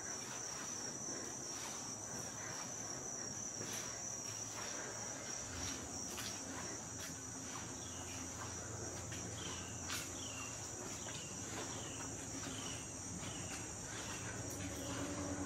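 Steady high-pitched chorus of insects trilling in the woods, with a run of short repeated chirps joining in during the second half.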